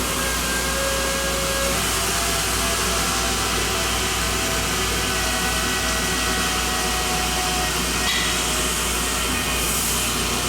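Tormach Slant-Pro CNC lathe running a cut on a 1045 cold-rolled steel cone: a steady machine noise with a low hum and faint whining tones that shift from time to time.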